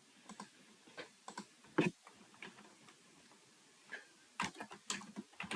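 Faint, scattered clicks of a computer mouse and keyboard, about seven single clicks, the sharpest a little under two seconds in and a few more near the end.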